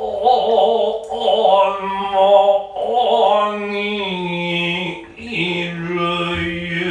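Noh chanting (utai): a voice drawing out slow syllables on long held, wavering notes that slide between pitches, with a short break about five seconds in.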